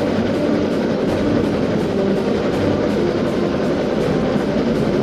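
A steam train running at speed, mixed with background music.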